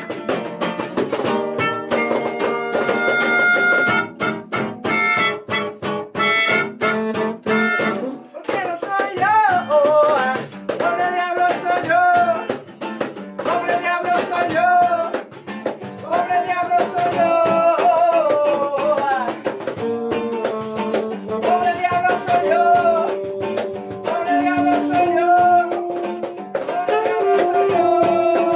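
Live acoustic band music: melodica, acoustic guitar and saxophone playing together, with a short break about eight seconds in before a gliding lead melody comes in over held chords.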